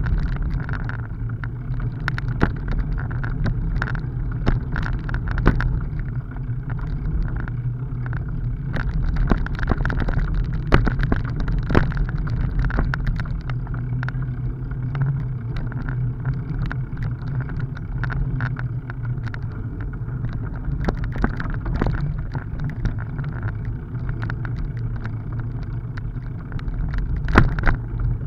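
Bicycle rolling over a rough, potholed dirt forest road: a steady low rumble of the tyres with frequent sharp knocks and rattles as it hits bumps.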